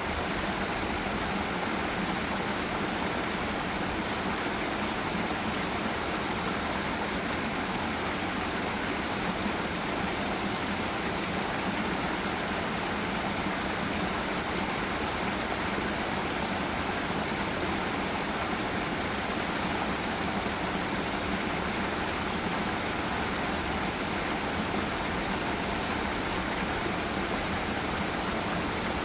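Forest river rushing over a small waterfall: a steady, even rush of water that does not change.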